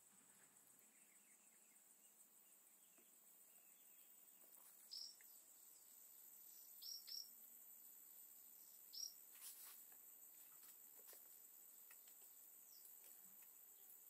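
Faint, steady high-pitched drone of jungle insects, with a few short, sharp bird chirps: one about five seconds in, a quick pair around seven seconds, and another near nine seconds.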